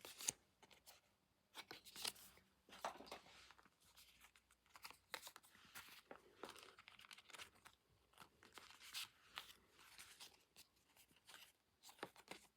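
Faint rustling and crinkling of paper and glossy pages as the contents of a K-pop album are handled, with many short crackles and soft taps coming in irregular bursts.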